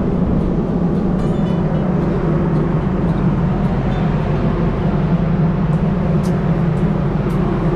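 Steady low drone of a ship's machinery heard on the open deck, with a few faint clicks near the end.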